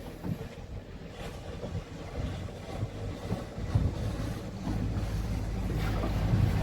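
Wind buffeting the microphone aboard a small motorboat at sea, with water sloshing against the hull. About two-thirds of the way through, a low steady motor drone comes up and grows louder.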